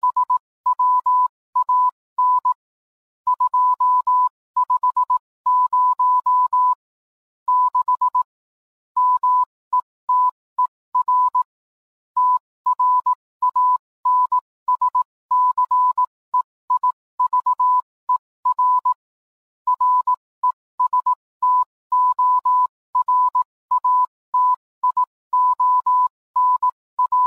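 Morse code sent as a single steady tone of about 1 kHz, keyed on and off in short and long elements.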